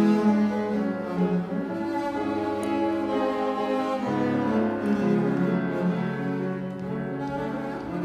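Double bass played with the bow in long, held notes, moving to a new note about four seconds in, with piano accompaniment.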